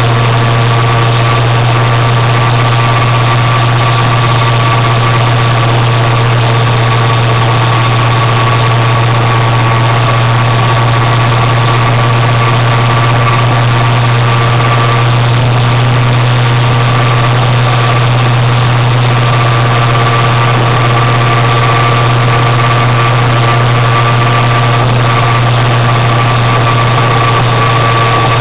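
Motor scooter engine running at a steady cruising speed, heard on board while riding: a constant low drone with a thin steady whine above it and a haze of road noise.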